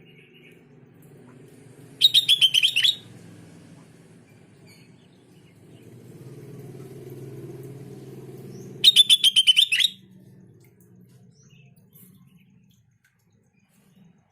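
Sooty-headed bulbul (kutilang) calling: two loud bursts of rapid, evenly repeated notes, each about a second long and some seven seconds apart, over a low rumble that fades near the end.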